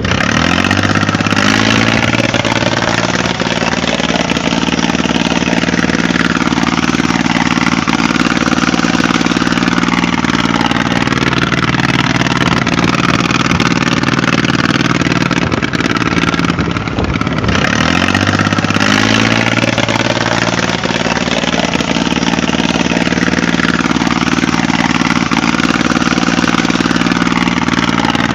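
Engine running steadily at a mid pitch, typical of a tractor engine. It rises in pitch shortly after it starts and again about two-thirds of the way through, with a brief dip just before the second rise.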